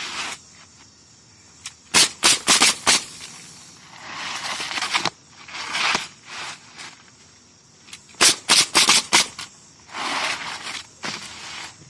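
A pneumatic roofing nailer driving nails into asphalt shingles in quick bursts of about five shots each, twice, with rustling and scraping of shingles being handled between the bursts.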